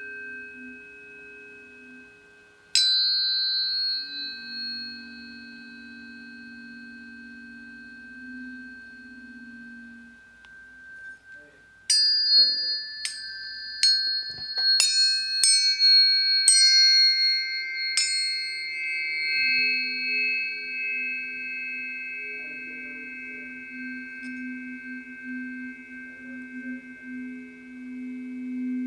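Planetary tuning forks ringing together in several steady pure tones. One fork is struck with a sharp ping about three seconds in. Around the middle a quick run of about seven strikes follows, each leaving a long ringing tone.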